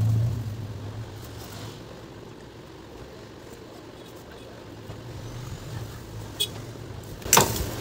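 Faint handling of a plastic mixer grinder body and a screwdriver over a low steady hum, with a sharp knock about seven seconds in.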